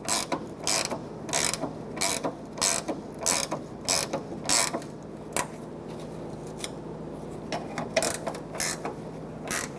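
Ratchet wrench on the 13 mm hood latch bolts, its pawl clicking in repeated strokes, about one to two a second for the first five seconds, then a pause and a few more clicks near the end.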